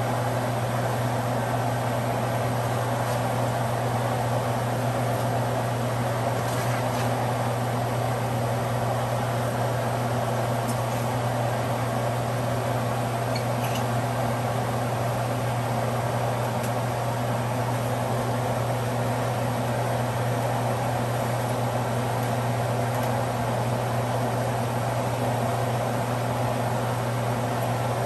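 A fan running with a steady, even hum and whoosh, with a few faint light clicks now and then.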